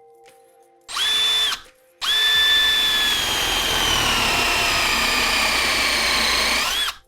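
Power drill spinning a plug cutter. A brief half-second spin comes first, then after a pause a five-second run. In that run the motor whine sags in pitch as the cutter bores into the wood, then rises again just before the drill stops as the load comes off.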